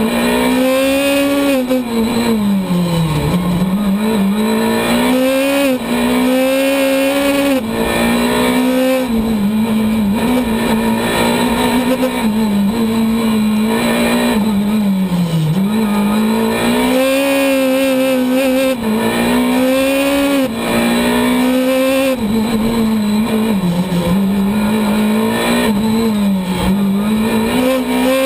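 Skoda Fabia S2000 rally car's 2.0-litre four-cylinder engine heard from inside the cabin at full stage pace. The revs climb, drop sharply at gear changes and dip under braking for bends, over and over.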